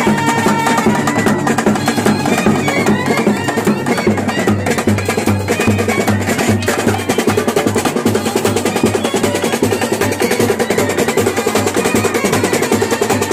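Live street band: snare drums and a bass drum beating a fast, steady rhythm, with a trumpet playing a tune over them at times.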